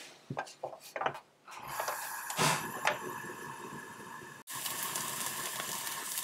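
A stove switched on with a few sharp clicks, then a steady hiss as the non-stick pan heats. About four and a half seconds in, oil under the pan-fried dumplings sizzles and crackles, the sign that the pan is hot enough for the frying batter.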